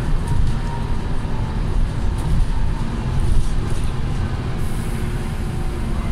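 Cabin noise inside an ALX400-bodied Volvo B7TL double-decker bus on the move: the steady low rumble of its 7.3-litre diesel engine mixed with road noise.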